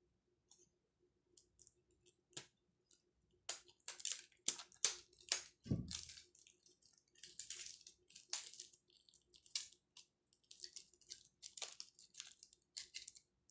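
Wax paper crinkling and crackling in short, irregular bursts as it is handled and wrapped over a small flashlight's head, with a soft thump about six seconds in.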